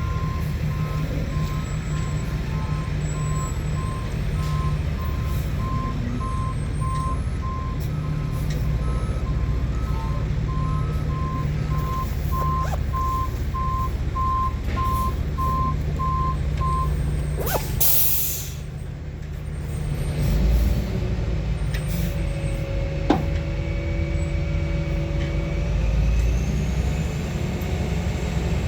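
Dump truck backing up: its reversing alarm beeps about once a second over the steady running of its diesel engine, stopping a little past halfway. Then comes a sharp hiss of air brakes, and a steady whine starts and rises in pitch near the end as the engine works the hoist to tip the load of snow.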